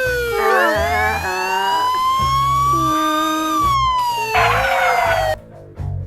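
Cartoon sound effects over background music with a bass beat: a siren-like tone glides slowly down, then up, then down again, with a cluster of quick wobbling slides about half a second in. A short burst of noise sounds a little before the end, and then the sound drops away suddenly.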